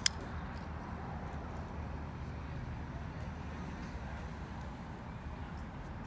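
A bearing-pivot flipper knife flicked open: a sharp double click right at the start as the tanto blade swings out and snaps into its locked-open position against the titanium frame lock. After that only a low, steady background rumble.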